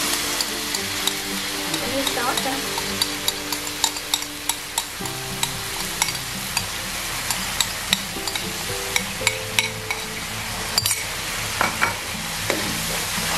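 Red sauce sizzling in hot oil with fried shallots and garlic in a wok, stirred with a metal spatula that clicks and scrapes against the pan many times.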